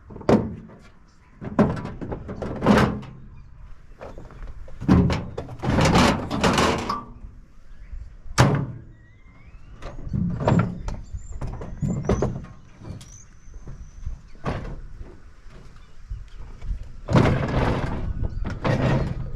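Metal parts of a microwave being pulled and pried apart by hand: a series of knocks, thunks and scrapes, with one sharp knock partway through and a faint rising squeak just after it.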